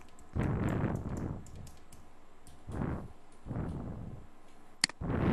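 Light computer keyboard typing with faint clicks, and one sharp click near the end. Several short, muffled rushes of noise are louder than the typing, the first and loudest about half a second in.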